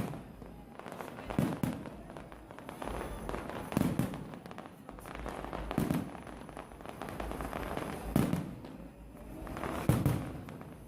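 Fireworks display: five loud bangs of bursting shells, about two seconds apart, each with a short echoing rumble, over steady crackle and noise between them.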